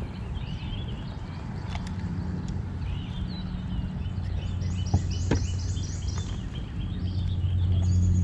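Outdoor ambience on open water: birds chirping and singing over a steady low hum, with two sharp clicks about five seconds in.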